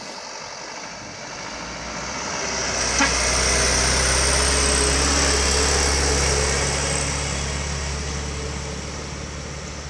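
Mitsubishi Colt Diesel light truck passing close by: its diesel engine and tyres grow louder, peak as it goes past, then fade as it drives away. There is one sharp click about three seconds in.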